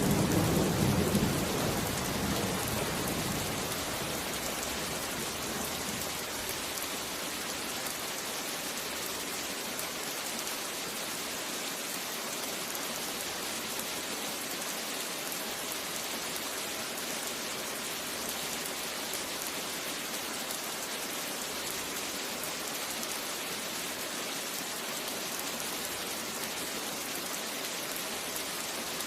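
Steady rain falling, an even hiss, with a roll of thunder rumbling and dying away over the first few seconds.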